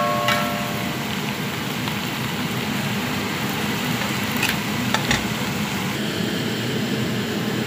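Chicken fillet strips sizzling in hot oil in a frying pan, a steady crackling hiss. Right at the start there is a brief metallic ring, and a couple of sharp utensil clicks come about four and a half and five seconds in.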